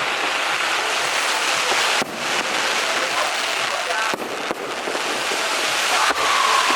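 Strings of firecrackers going off in a continuous dense crackle, with brief breaks about two, four and six seconds in. Near the end a steady whistling tone enters and falls slightly in pitch.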